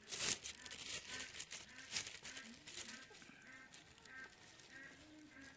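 Soft, short clucks from chickens, repeated about twice a second. A sharp crinkling rustle comes at the start and again about two seconds in.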